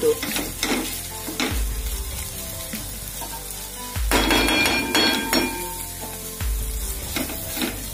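Okra frying in oil in a pan, sizzling, with a spoon scraping and stirring through it as gram flour is mixed in. The spoon strokes come as repeated clicks.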